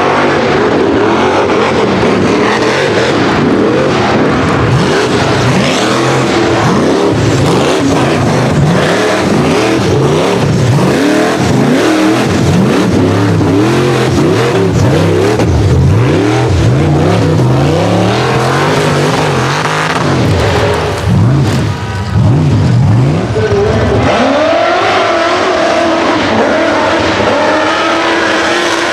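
A rock bouncer buggy's engine being revved hard, over and over, as it claws up a steep, loose dirt hill. The pitch rises and falls again and again, and there is a short drop in loudness about three quarters of the way through.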